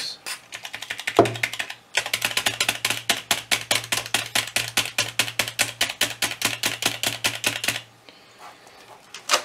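Amiga 1000 keyboard keys pressed over and over in fast runs of clicks, about seven a second, working freshly sprayed contact cleaner into the key contacts to bring dead keys back to life. A short run with a knock about a second in, then a long steady run that stops near the end.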